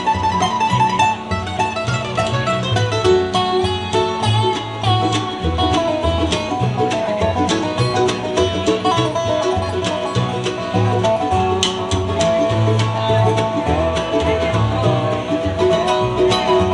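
Live string band playing an instrumental break between sung verses, with quick plucked banjo and guitar picking over a pulsing bass part.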